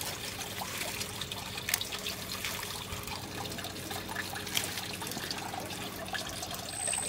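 Steady trickling of water, with scattered light clicks and rustles. A thin, steady high whine starts near the end.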